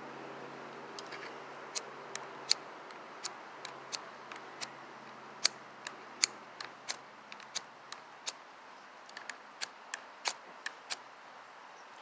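Multitool's small ferrocerium fire-starter rod being struck again and again with the knife's spine: a run of short, sharp metal scrapes and clicks at an irregular pace of about two a second. The spine proves useless for throwing sparks.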